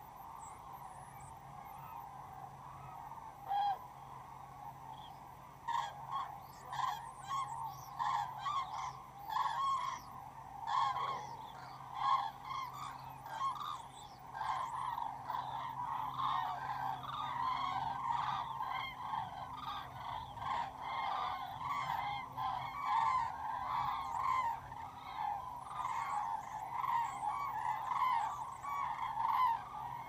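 A large flock of common cranes calling in flight overhead, many overlapping trumpeting calls. A single call comes early, and the chorus thickens about six seconds in and stays dense.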